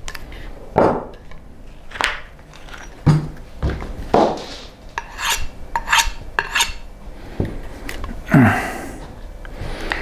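Steel knife blade drawn edge-first across a hard block to deliberately dull it before resharpening: a series of short rasping scrapes, roughly one a second.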